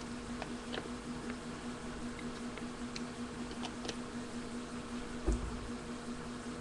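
Quiet room tone with a steady low hum, a few faint scattered clicks, and a soft thump about five seconds in.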